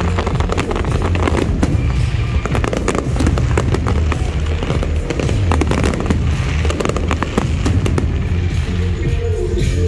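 A rapid barrage of aerial firework shells bursting, with many sharp bangs close together over a continuous low rumble. Music plays underneath.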